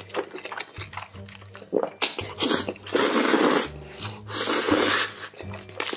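A person slurping a big mouthful of black-bean-sauce noodles off chopsticks: loud, wet sucking pulls, three long ones in the second half, with background music underneath.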